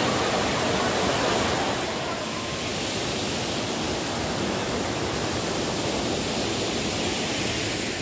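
Steady roar of a monsoon waterfall, an even rushing of falling water that drops a little in level about two seconds in.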